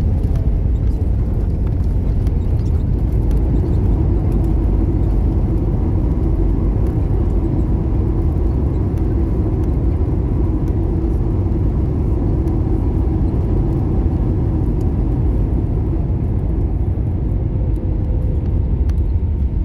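Jet airliner cabin noise from a window seat while the plane rolls on the ground: a steady low rumble and drone from the engines and wheels, with a faint steady whine above it.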